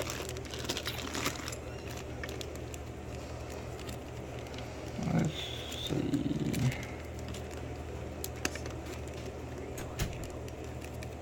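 Scattered faint clicks of small metal lock parts and tools being handled on a workbench, over a steady low hum, with a brief murmur from a voice about five to six and a half seconds in.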